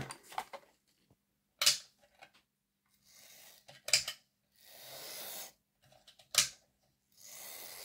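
Sharp plastic clicks and knocks of a just-reassembled OO gauge model locomotive being handled on a workbench, three distinct clicks a couple of seconds apart, with two soft hissing sounds in between.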